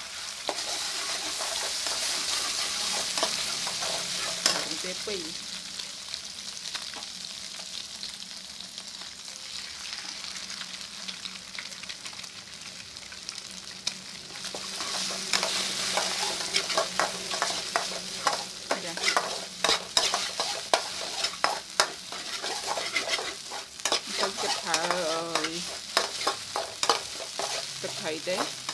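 A duck egg frying in hot oil in a metal wok, sizzling steadily, loudest in the first few seconds. From about halfway through, a metal ladle stirs and scrambles it, scraping and clicking against the wok.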